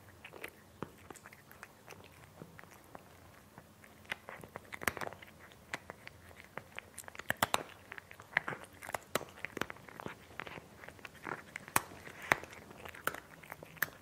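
A cat eating crunchy food: irregular sharp crunches as it bites and chews, sparse at first and coming thicker and louder from about four seconds in.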